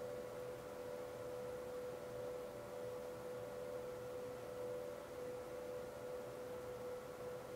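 A steady mid-pitched tone that holds one pitch without change, with fainter higher tones above it.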